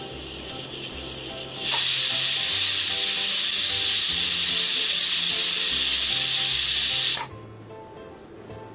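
Pressure cooker whistle going off: steam blasts out through the weight valve in one loud, steady hiss lasting about five and a half seconds. It starts about two seconds in and cuts off suddenly. The release marks that the cooker has reached full pressure, one of the whistles counted to time the cooking.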